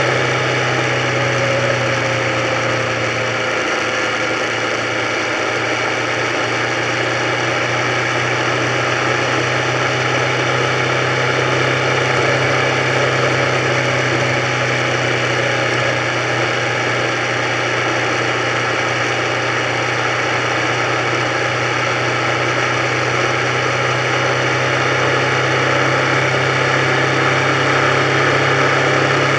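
Motorcycle engine running steadily at cruising speed, heard from the moving bike itself.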